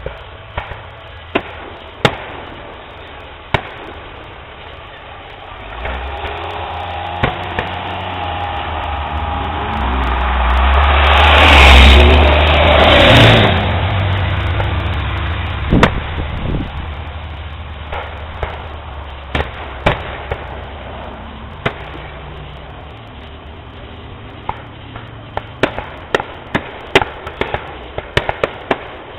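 Fireworks going off: scattered single bangs, then a rumble that swells over several seconds to its loudest about twelve seconds in and dies away, and a quickening string of crackling pops near the end.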